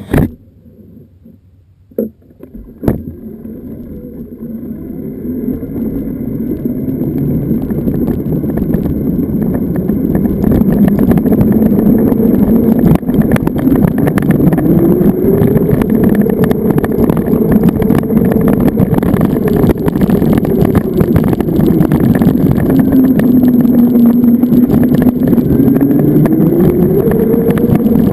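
Zero FX electric motorcycle pulling away and gathering speed: a few clicks at the start, then wind rushing over the microphone builds for about ten seconds and holds loud. Through it the electric motor's whine rises and falls in pitch with speed.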